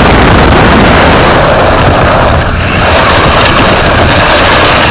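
Loud, steady rushing noise of an RC rally car driving on pavement, heard from its onboard camera, with a brief dip about two and a half seconds in.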